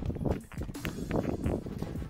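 Footsteps of a hiker walking on a dry dirt trail with loose stones, a steady walking pace of a few steps a second.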